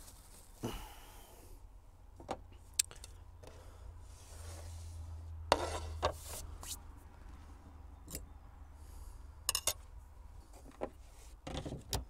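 Tableware being handled on a wooden table: a plastic plate and a knife set down, with scattered light taps, clicks and a short stretch of rubbing, and a quick run of clicks near the end.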